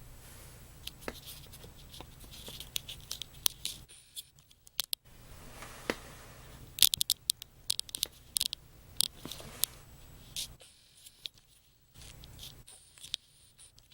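Scattered light clicks, taps and scrapes of small objects being handled on a surface, busiest about halfway through, over a steady low hum.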